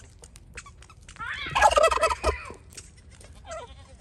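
A tom turkey gobbling once, a rapid rattling call of about a second, starting just over a second in.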